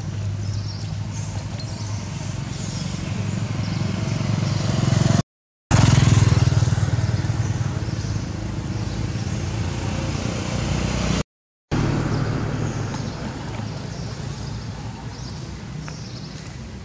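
A motor vehicle engine running, a steady low hum that grows louder over the first several seconds and slowly fades in the second half. The sound cuts out completely for a moment twice.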